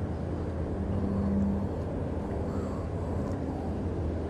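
Steady low motor hum, with a brief higher tone joining it about a second in.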